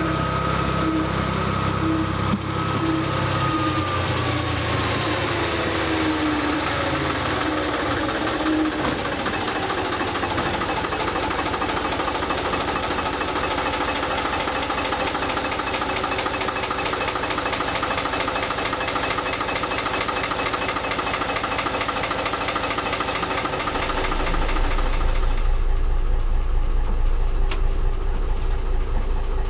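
Engine running steadily with a fine, fast beat. Its pitch falls over a few seconds near the start as it slows. A deeper low rumble joins near the end.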